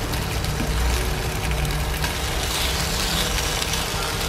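Chicken breast pieces sizzling in oil in a non-stick frying pan as a wooden spatula turns them, over a steady low hum.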